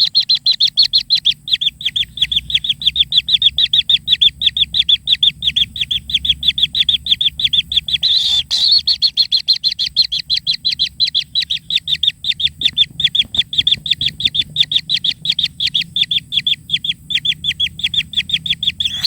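Kingfisher chicks calling in a fast, unbroken train of short, high chirps, about five a second: begging calls at feeding time. A brief rustle comes about halfway through.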